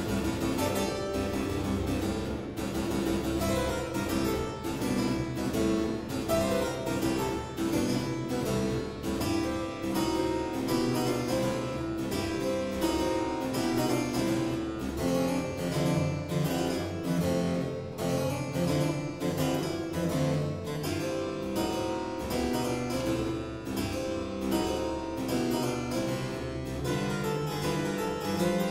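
Two-manual harpsichord played solo in a boogie-woogie style: a driving, evenly pulsed stream of plucked notes over a repeating bass figure.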